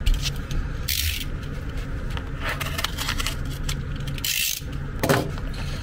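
Yellow padded paper mailing envelope being handled and opened: bursts of rustling and scraping. The loudest come about a second in and again after about four seconds, over a low steady hum.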